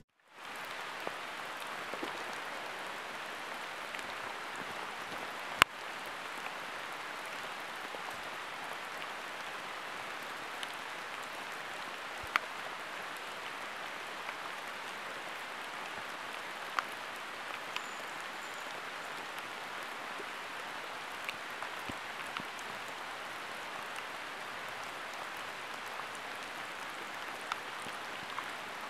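Steady rain falling on foliage, an even hiss, with a few sharp taps through it, the loudest about five and a half seconds in.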